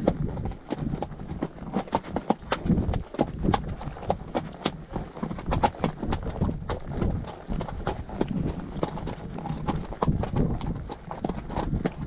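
Hooves of a ridden horse clip-clopping steadily on the track, a few footfalls a second.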